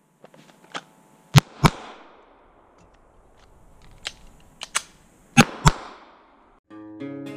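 Two double taps from a Springfield XD9 9mm pistol: a pair of sharp shots about a second in and another pair about four seconds later, each pair about a third of a second apart, with lighter clicks before each pair. Acoustic guitar music starts near the end.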